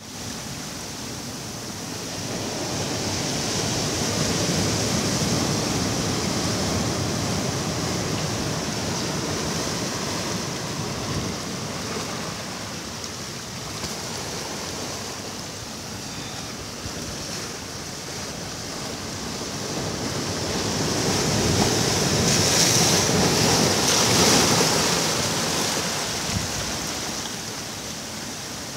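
Ocean surf: waves breaking and washing up the beach, swelling to a louder crash twice, a few seconds in and again near the end.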